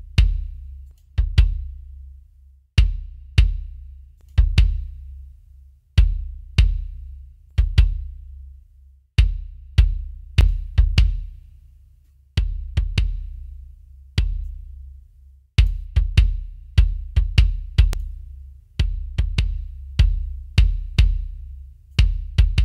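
Sampled acoustic kick drum (EZdrummer kick-in and kick-out mics) playing a beat on its own in an uneven pattern with some quick double hits. Each hit is a sharp beater click followed by a long low boom. A Distressor-style limiter plugin is bringing out the click and snap of the attack, while a sidechain high-pass keeps the low end.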